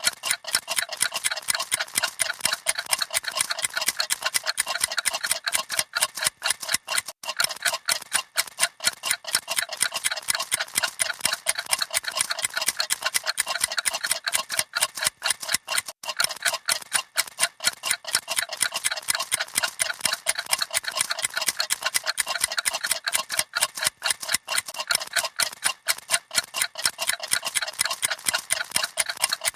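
Several clocks ticking at once, their fast ticks overlapping into a dense, uneven clatter of sharp clicks.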